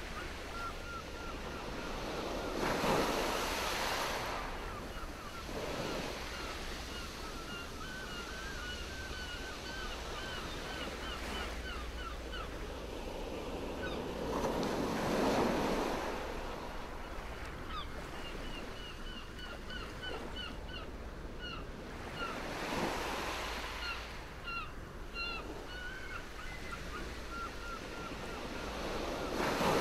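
Sea waves washing ashore, a surge swelling up and falling back every several seconds, over a low wind rumble on the microphone. A bird chirps in quick repeated notes between the surges.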